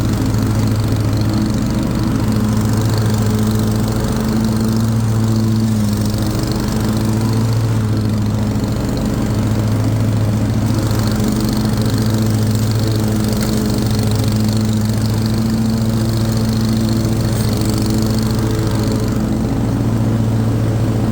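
Cub Cadet RZT L zero-turn riding mower's engine running steadily. The engine note wavers slightly in level every few seconds.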